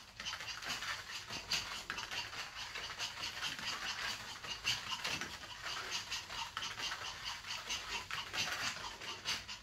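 Rapid, light patter of a small dog's paws on a foam play mat as it scampers around.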